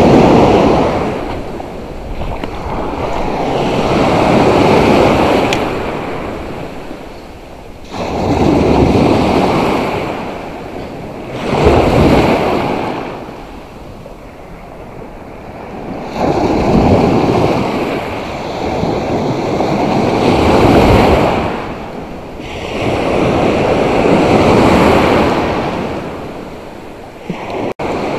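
Sea surf breaking and washing up a sandy beach, the rush of water swelling and fading about seven times, every three to four seconds.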